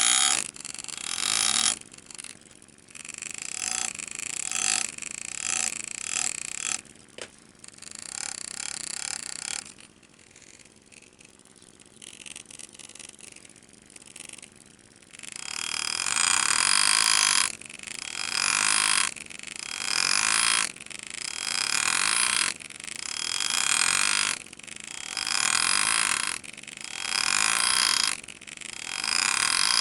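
Pneumatic engraving handpiece buzzing in short repeated bursts as it cuts into the steel of an antique Lefever shotgun receiver. The bursts are softer at first, pause for a few seconds around the middle, then come back louder at about one every second and a half.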